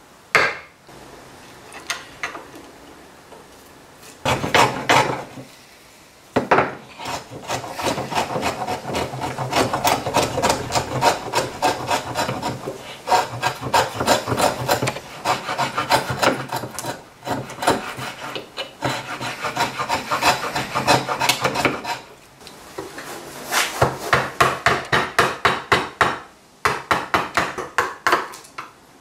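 Hand tools cutting white oak in repeated scraping and paring strokes. A sharp chisel tap comes at the start, then a long run of rapid scraping strokes from a hand router plane, then quick, evenly spaced paring strokes of about two or three a second near the end.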